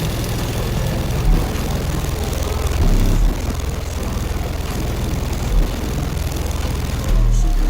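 Orion HCCA car subwoofers playing bass-heavy music at high volume. Very deep bass notes swell out of a constant low drone a few times, and the longest hit comes near the end.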